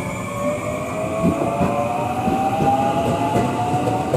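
JR West 521 series electric train accelerating away from a station stop: the traction motor whine rises slowly in pitch, and from about a second in the wheels start clattering over the rail joints in a rhythm.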